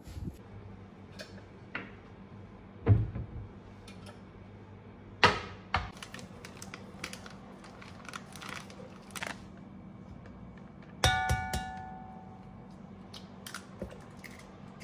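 Kitchenware being handled: a few sharp knocks and thumps, the loudest about three and five seconds in, then about eleven seconds in a metallic clink on the enamel measuring jug that rings on for about a second.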